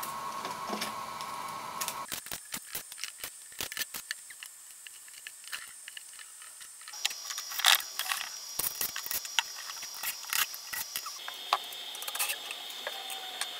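Small metal clicks, taps and rattles of Torx screws and a cordless driver being handled while a battery pack's plastic cover is unscrewed, with a sharper knock about eight seconds in. A faint steady high whine sits underneath and jumps to a new pitch a few times.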